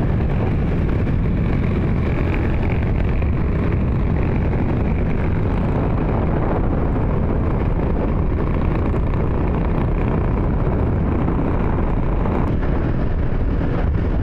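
Motor scooter being ridden on the road: a steady rush of engine and wind noise with no breaks or changes.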